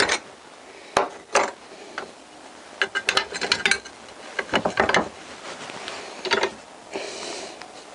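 Irregular metal clicks and clunks of small metal parts being handled and repositioned, with a busy run of clicks about three seconds in.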